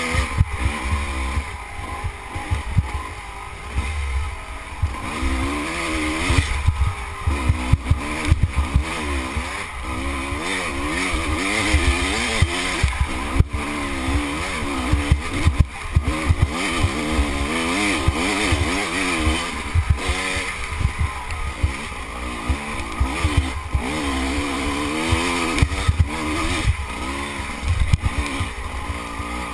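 Off-road motorcycle engine revving up and down under load as the bike climbs a rough trail, its pitch rising and falling continually. Wind noise on the microphone and frequent sharp knocks run along with it.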